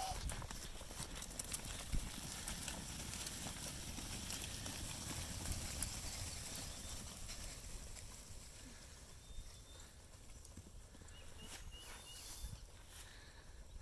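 A flock of sheep trotting and running onto pasture: a patter of many hooves on ground and grass. It fades after about eight seconds as the flock slows and spreads out to graze.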